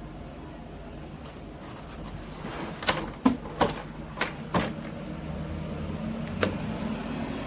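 Several sharp clicks and knocks in quick succession near the middle, with one more near the end, over a steady low hum.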